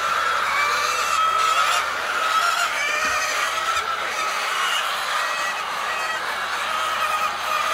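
A large flock of birds calling at once: a dense, continuous chorus of many overlapping calls at a steady level.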